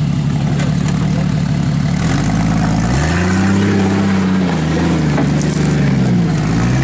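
Jeep Cherokee engine running at low revs as it crawls a rocky hill, revving up about two to three seconds in, easing off, then revving up again briefly near the end.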